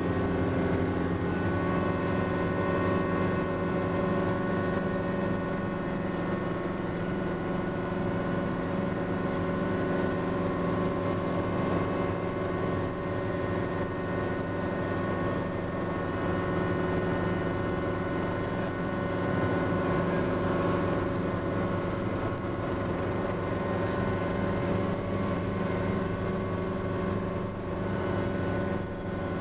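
Schweizer 300 helicopter's four-cylinder Lycoming piston engine and rotors running, heard from inside the cockpit: a loud, steady drone with several constant whining tones.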